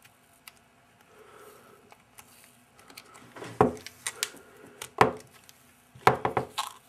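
Fingers and fingernails working at the edge of a protective skin film on the plastic back of an iPhone 3G/3GS, peeling the film off. A few sharp clicks and crackles come about halfway through, then a quick run of clicks near the end.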